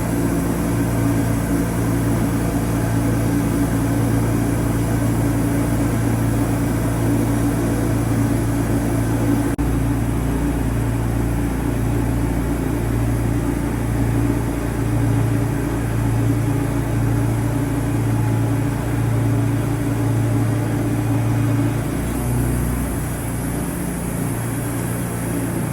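Wood-Mizer LT40 Super sawmill running: a steady engine-driven hum with a slow, even throb in its low tone through much of the stretch, shifting near the end.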